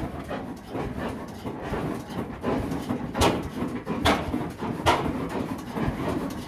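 Vintage stationary engine with large flywheels running slowly, chuffing in a steady rhythm, with three sharper firing beats about 0.8 s apart in the middle.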